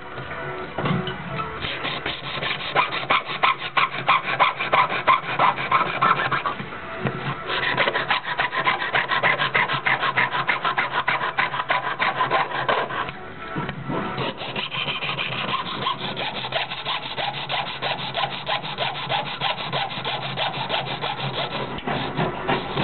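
A jeweller's saw cutting through a thin metal pendant disc, with quick, even back-and-forth strokes and a short break about halfway through.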